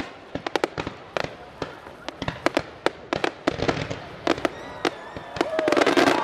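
Aerial fireworks bursting overhead: a quick string of sharp bangs and pops. Onlookers' voices swell near the end.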